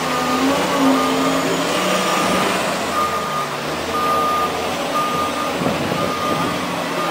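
Bulldozer engine running with its reversing alarm beeping steadily, about one beep a second.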